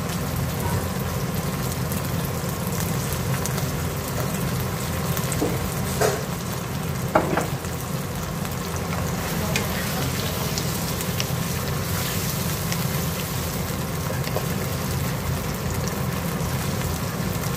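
Vegetables in a sweet-and-sour chilli sauce sizzling steadily in a wok, with two brief knocks about six and seven seconds in, and a wooden spatula stirring the mixture near the end.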